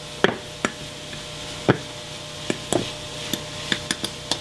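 Irregular sharp clicks and knocks, about a dozen, from a metal measuring cup and a knife clinking against a glass flour jar as a cup of flour is scooped out and leveled off, over a faint steady hum.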